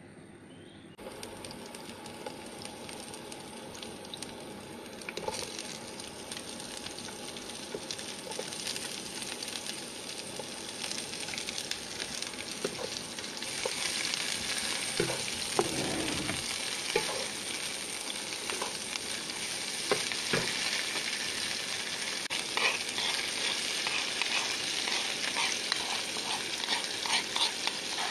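Lemongrass, ginger and shallots sizzling in hot oil in a wok, stirred with a wooden spatula that scrapes and knocks against the pan. The sizzle starts about a second in and grows louder about halfway through, with the spatula knocks coming more often near the end.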